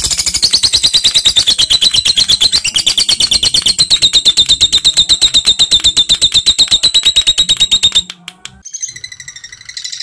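Fischer's lovebird singing its long 'ngekek' trill: a loud, fast, even run of shrill notes that stops abruptly about eight seconds in. Softer lovebird chirps follow near the end.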